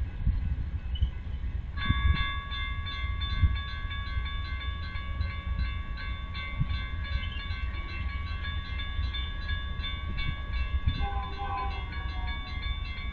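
Railroad grade-crossing warning bell ringing steadily, switching on about two seconds in, over the low rumble of a diesel train.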